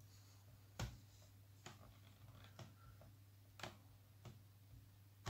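About five faint, sharp clicks roughly a second apart as a laptop's pointer is clicked, with a low steady hum beneath.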